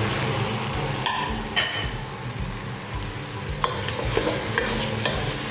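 Chicken pieces and chopped tomato sizzling in oil in a pot as they are stirred, with a utensil knocking sharply against the pot twice about a second in and lighter clicks later on.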